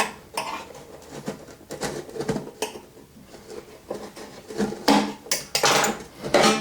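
A knife prying and scraping at the tight back panel of a wall clock: irregular clicks, scrapes and small knocks of the blade against the panel and its frame, growing busier and louder in the second half.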